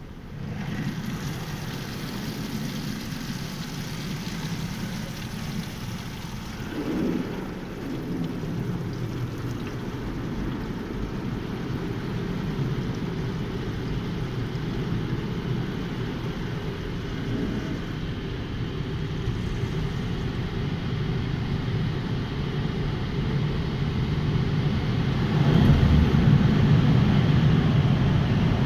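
Automatic tunnel car wash machinery running, heard from inside the car's cabin: a steady mechanical rushing noise that starts abruptly and grows louder near the end.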